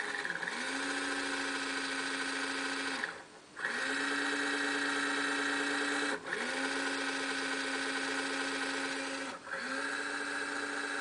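Create RC5-3 antenna rotator's motor and gear train running with a steady hum and gear whine, its housing open. It runs in four spells of about three seconds with brief stops between, and each spell starts with a short rise in pitch as the motor spins up.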